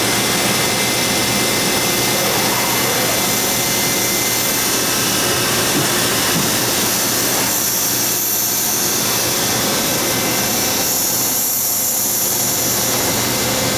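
Sharnoa HPM-30 CNC vertical machining center running under power with a steady whirring noise while its T-slot table traverses back and forth. A faint whine rises and falls in pitch in the first few seconds.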